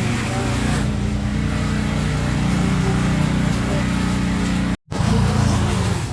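Small petrol engine of yard-clearing equipment running steadily under load, its pitch wavering a little. The sound cuts out for an instant about five seconds in.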